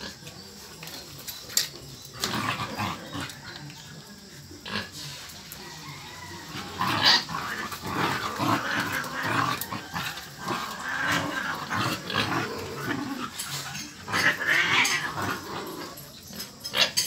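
A dog and a cat play-fighting: the dog's growls and snuffles mixed with scuffling on concrete, coming in irregular bursts that are busiest about seven seconds in and again around fifteen seconds.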